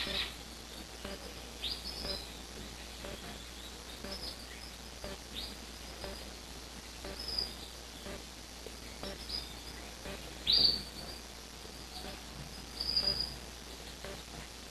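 Small cage birds in an indoor aviary giving short, high chirps and calls at irregular intervals, with a louder call about ten seconds in and another near the end.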